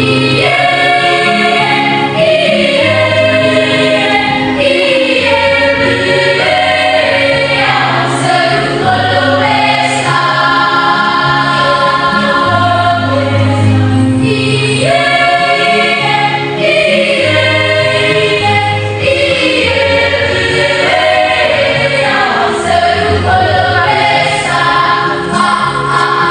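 Youth school choir singing a song in several vocal parts, with held, changing chords.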